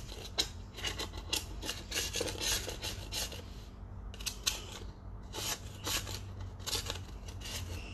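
Dried paint being scraped off an artist's palette: irregular rasping scrape strokes with a short pause about four seconds in. The paint is wetted but still really stuck.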